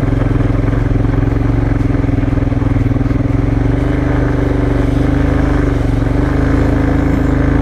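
Motorcycle engine running steadily under way, its pitch holding even.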